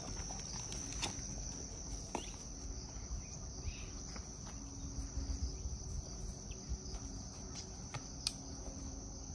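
Crickets chirring in a steady, high-pitched continuous trill, with a few faint scattered knocks.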